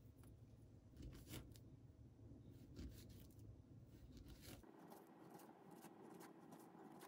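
Faint handling sounds of a banana being peeled by hand: soft tearing of the peel and a few light clicks.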